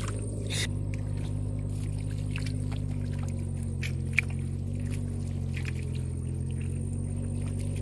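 A steady low engine drone runs throughout, with scattered small clicks and rustles and one sharp tick about four seconds in.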